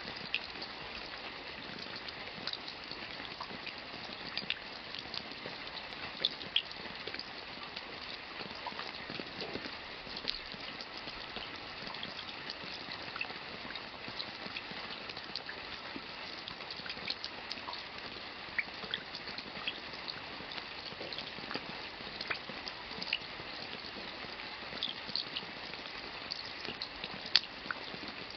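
Steady rain with a dense hiss and many separate drops ticking and splashing close by, a few of them louder.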